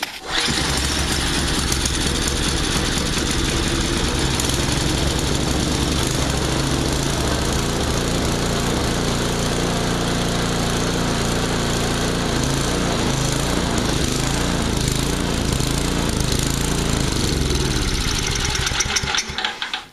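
Tecumseh 5 hp single-cylinder four-stroke snowblower engine catching about half a second in and running, its speed rising and falling unevenly in the second half, then cutting out near the end. It keeps dying out because the carburetor's bottom mixture screw still needs adjusting.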